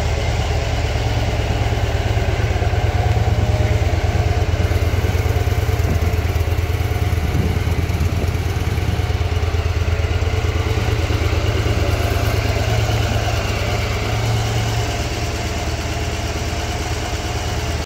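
Victory Vision touring motorcycle's Freedom 106 V-twin engine idling steadily, a low, even rumble, a little quieter near the end.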